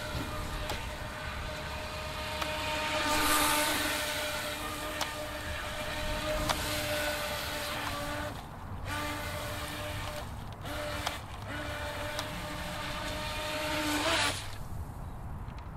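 Electric motor of an NQD Tear Into RC jet boat, overdriven on a 3S LiPo, running at a steady high-pitched whine as the boat speeds across the water. The whine cuts out briefly three times and stops about a second before the end.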